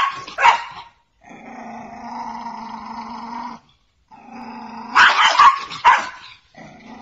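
A small dog growling in two long, steady stretches, with short sharp barks near the start and again about five to six seconds in.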